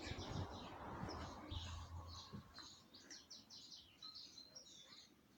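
Small birds chirping, a rapid run of short high chirps, faint. A low rumble is under them for the first couple of seconds, then fades.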